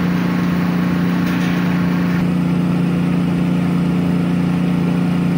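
An engine running steadily at one constant speed, an even low hum that does not change.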